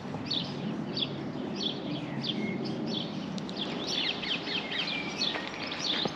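Small birds singing, a busy run of short, quick chirps and twitters, over a low steady background hum.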